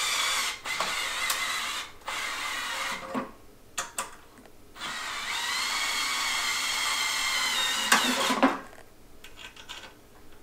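Cordless drill/driver run slowly, driving self-tapping screws into an aluminium extrusion so they cut their own threads. It goes in two runs of a steady whine: the first about three seconds long with two brief stops, the second starting with a rising whine and stopping after about four seconds, with a few clicks and knocks between and after.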